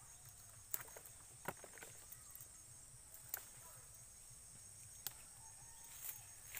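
Faint steady high insect buzz, with four or five sharp snaps as roselle calyxes are picked off their stems by hand.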